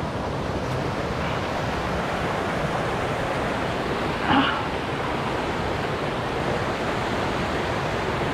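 Fast-flowing mountain creek, a steady, even rushing of water.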